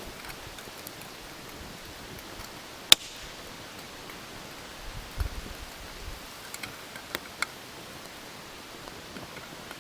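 Campfire of wet firewood burning: a steady hiss with a few sharp crackling pops, the loudest about three seconds in and two more about seven seconds in. A brief low thud comes about five seconds in.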